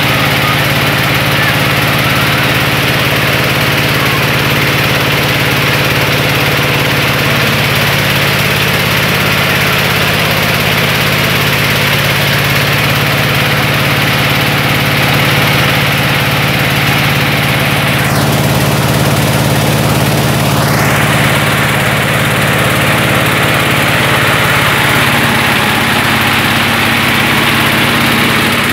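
Mobile rice-milling machine running steadily as it husks paddy: a constant engine hum under a dense, even noise of the milling machinery.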